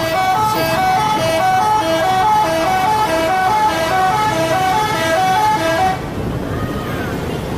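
Indonesian 'telolet' bus horn playing a quick repeating tune of alternating high and low notes, about three notes a second. It cuts off abruptly about six seconds in, leaving a low rumble.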